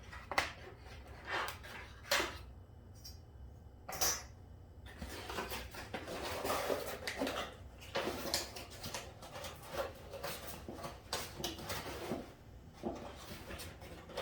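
Metal motorcycle fork springs and spacers being handled and set down on a workbench: single knocks and clinks about once a second, then a longer stretch of rattling and rustling as the parts are moved about.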